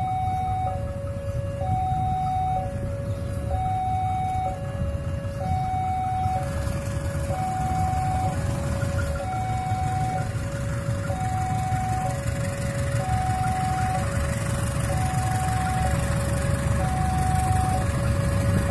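Railway level-crossing warning alarm sounding two alternating electronic tones, higher then lower, about two tones a second, the signal that a train is approaching. Under it a low, noisy rumble grows louder after about six seconds.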